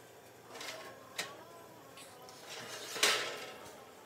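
Metal muffin tin and oven rack being slid out of the oven: a light click about a second in, then a louder metallic clatter about three seconds in.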